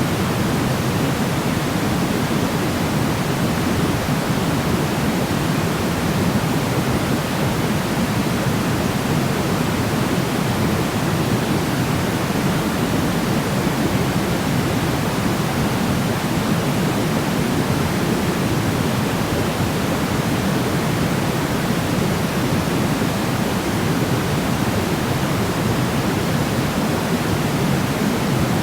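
Steady, unbroken sleep-aid noise, a deep even hiss that is fullest in the low-middle range and softer in the highs, with no change in level or character.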